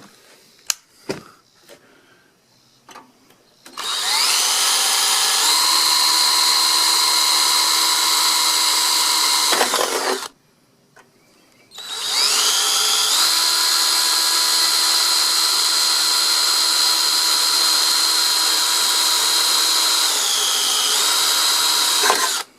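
Electric power drill running in two long runs, the first about six seconds and the second about ten, each spinning up to a steady high whine and winding down when released.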